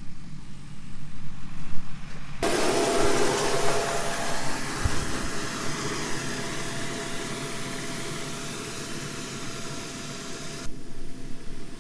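Tractor pulling a seed drill running close by: a steady low engine note, with a loud hiss that comes in suddenly a couple of seconds in and slowly fades toward the end.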